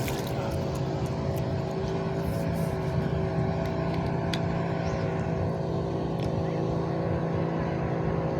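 Motorboat engine running steadily as the boat passes close by, a constant even hum with no change in pitch.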